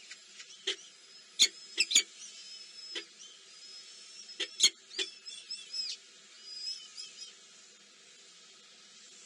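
Baby birds in a nest cheeping with thin, high-pitched squeaky calls, mixed with several sharp clicks, the loudest about a second and a half, two and four and a half seconds in. The calls die away after about seven seconds.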